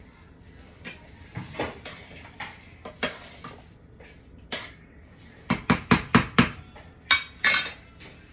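Metal cutlery and cookware clinking against a glass dish and a cooking pot: scattered sharp clinks, with a quick run of five past the middle and two more near the end.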